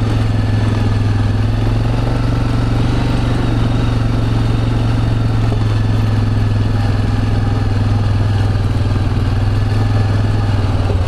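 A vehicle's engine running steadily, an even low drone.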